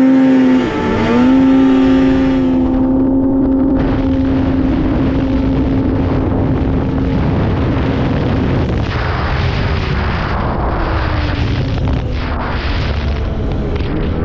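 Two-stroke snowmobile engine revving up, dipping briefly about half a second in, then holding a steady high pitch at full throttle. After about eight and a half seconds the engine tone drops and fades under a steady rushing noise.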